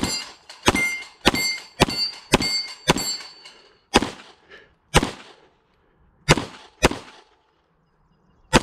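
Pistol shots fired in a rapid string. About six shots come in the first three seconds, several followed by the ringing of hit steel targets. Then single shots follow roughly a second apart.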